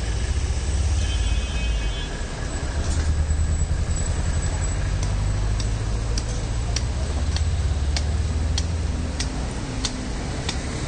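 Butcher's cleaver chopping into a hanging beef carcass: sharp strokes at an even pace, a little under two a second, from about halfway in. A steady low rumble of street traffic runs underneath.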